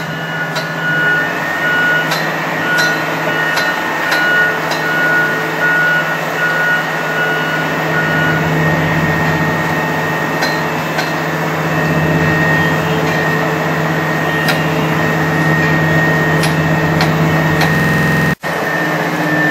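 Heavy-lift crawler crane's diesel engine running steadily under load during a lift, a loud constant hum. A short warning beep repeats about once a second for the first eight seconds or so.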